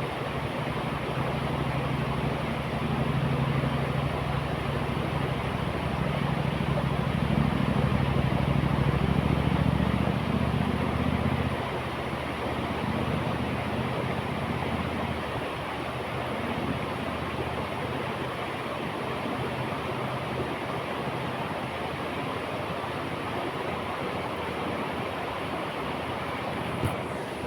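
River water rushing steadily over rocks. A low rumble underneath stops about eleven seconds in, and there are a couple of faint clicks near the end.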